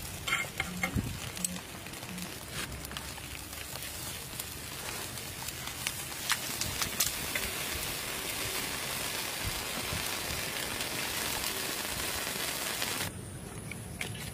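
Skewered scorpions grilling on a wire rack over a charcoal fire: a steady sizzling hiss with scattered sharp crackles. The hiss grows stronger toward the middle and cuts off abruptly near the end.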